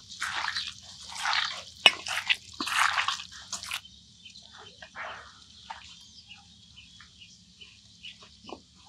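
Wet squelching of hands kneading raw beef chunks with sliced onion and spice paste in a metal pot, busy for the first four seconds, then fainter and sparser.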